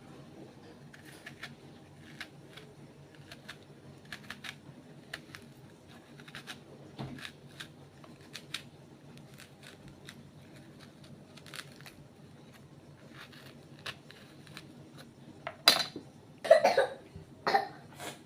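Scattered light clicks and taps over a faint steady hum, then a person coughing three times near the end.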